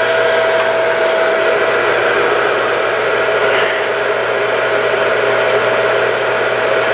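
Electric well pump motor running steadily, a constant whine over a rushing hum. It has just been switched on and has not yet started pulling water.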